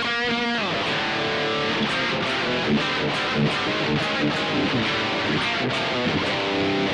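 Electric guitar playing, a Jackson JS32-7 Dinky 7-string run through a Blackstar HT-1RH 1-watt tube amp: a bent note released near the start, then a fast, continuous run of notes.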